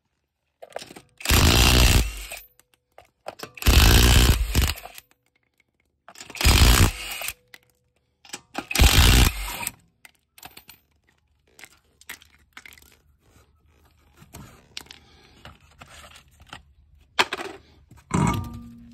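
Cordless impact wrench (rattle gun) hammering in four bursts of about a second each, undoing the wheel nuts. Quieter clicks and scrapes follow.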